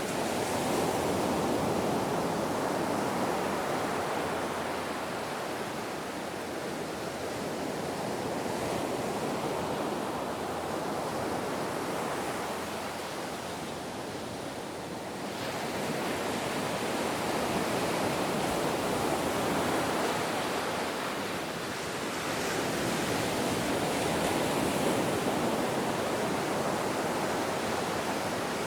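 Ocean waves breaking and washing on the shore: a continuous rushing surf that swells and eases in slow surges every few seconds.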